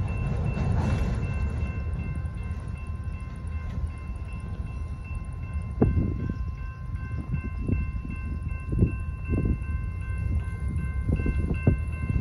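The last freight cars rumble past a road grade crossing while the crossing's warning bell rings with a steady multi-tone ring, stopping near the end as the crossing clears. From about halfway, several short low thumps sound over the rumble.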